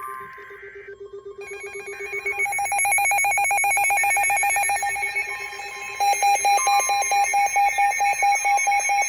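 Emergency alert tones from several devices sounding at once and overlapping. A steady low tone gives way to layered, rapidly pulsing electronic beeps, and about six seconds in a louder beep pulsing three or four times a second takes over.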